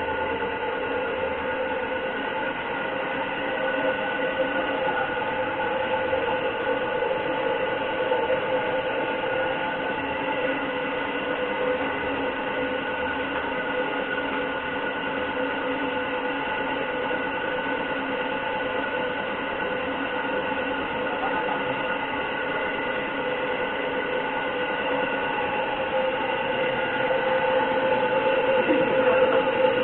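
Air compressor running steadily for spray painting the frame's base coat: a continuous machine drone with a steady whine over a hiss.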